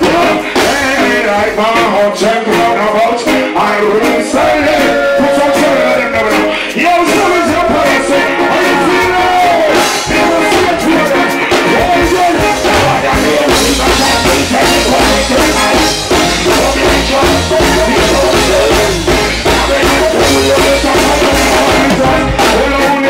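Live reggae performance: a male vocalist sings into a microphone over a live band with drums and keyboards. About halfway through, a heavy bass line comes in under the voice.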